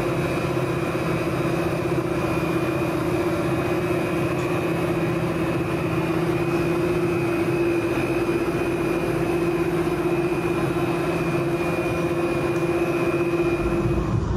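Aerial cable car gondola running along its cable: a steady mechanical drone with a constant high whine above it.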